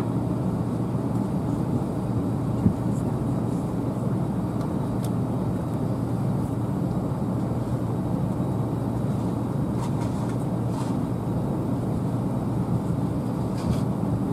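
Steady low rumble inside an airliner's cabin as it taxis with its jet engines at idle.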